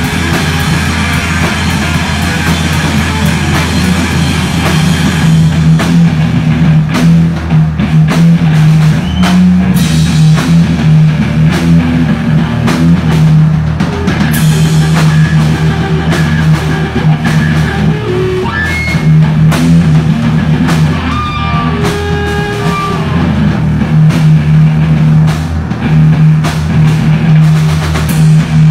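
Live hard rock band playing loud: distorted electric guitars over heavy low notes, with the drum kit coming in about five seconds in and keeping a steady beat.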